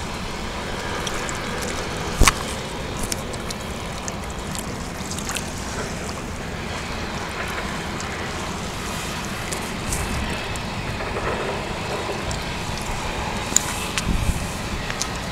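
Steady outdoor wind and harbour water noise, with wind buffeting the microphone. A single sharp knock comes about two seconds in, and a few lighter ticks come near the end.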